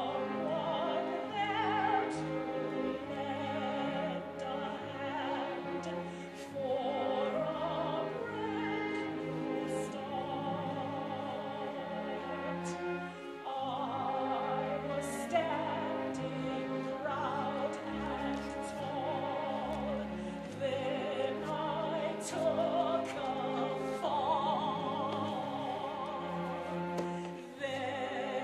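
Opera singing with vibrato over orchestral accompaniment, continuous throughout.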